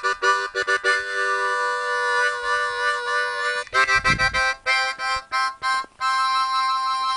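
Harmonica music: short choppy chords, a chord held for a few seconds, more quick chords, then a long held chord about six seconds in. A brief low rumble comes about four seconds in.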